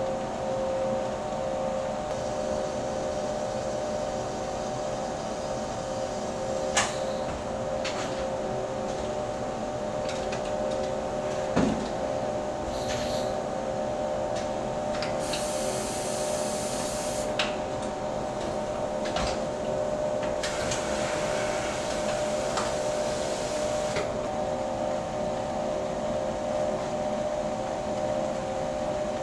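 Automated assembly-line machinery running with a steady hum, a few sharp clicks, and two stretches of hiss of a few seconds each around the middle.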